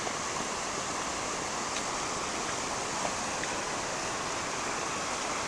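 Waterfall rushing: a steady, even rush of falling water, with a faint tick or two.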